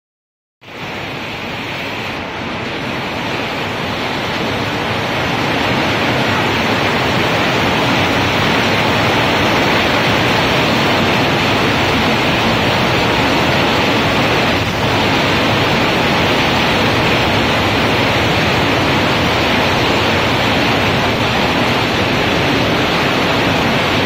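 Heavy rain pouring down in a thunderstorm with wind: a dense, steady hiss that builds over the first few seconds and then holds.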